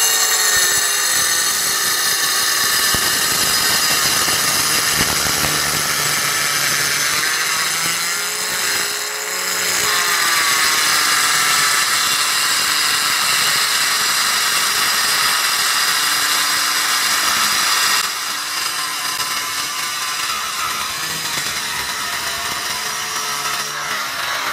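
Kobalt handheld wet tile saw with a water-fed diamond blade cutting through a stone countertop, its motor whining steadily under load. The motor pitch sags and recovers about nine seconds in, and the sound drops a little in level at about eighteen seconds.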